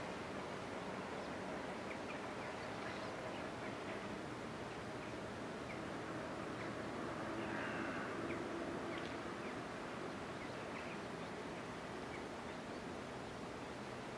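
Quiet riverside ambience: a steady outdoor hiss with faint, scattered bird chirps and a slightly louder call about eight seconds in.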